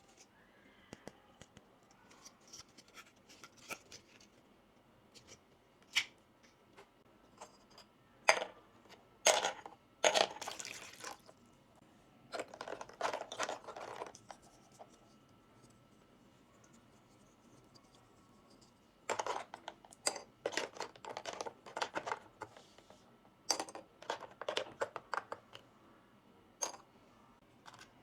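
Small plastic toy kitchen pieces and their packaging being handled: scattered sharp clicks and taps with short scratchy bursts, coming in clusters separated by quiet pauses.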